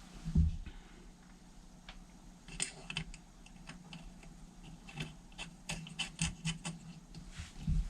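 Light clicks and taps of small metal carburettor parts and a small tool being handled, with a dull knock about half a second in and a run of clicks near the end.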